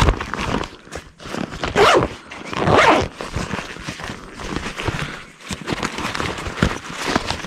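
Rasping, rustling handling noises as a frog lure that a fish has swallowed deep is worked out of its mouth, with louder scrapes near the start, about two seconds in and about three seconds in.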